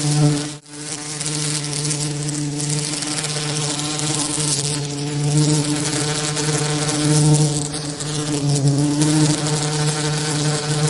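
Steady buzzing of bee wings used as a tinnitus masking sound: a low buzz with a ladder of overtones over a wide even hiss. There is a brief drop-out just after the start.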